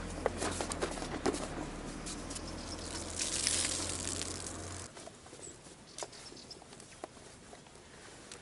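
Neoprene wetsuit being handled: rustling with small knocks and clicks, then a short hissing splash of water streaming out of the wetsuit jacket about three seconds in.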